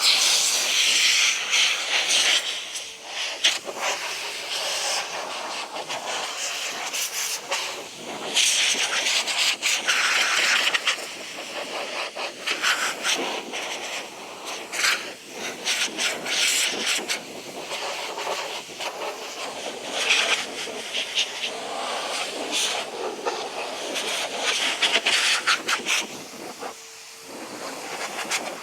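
Hissing spray in repeated bursts of one to three seconds, starting and stopping over and over while a motorcycle is washed and detailed.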